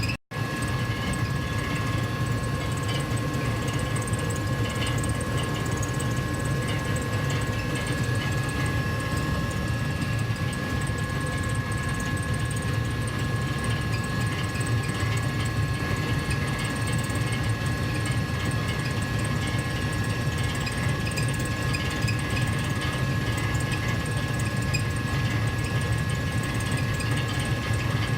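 Gas furnace running steadily: a low, even rush of air with two faint steady tones above it. It drops out for an instant just after the start.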